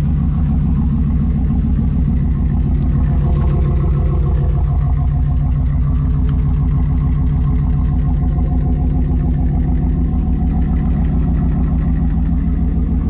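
1994 Pontiac Firebird Trans Am's LT1 V8 idling steadily with an even, pulsing exhaust note.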